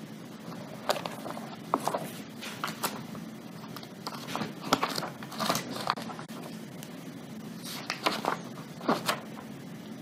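Courtroom room tone: a steady low hum with scattered soft clicks and rustles, like papers and exhibits being handled near a microphone.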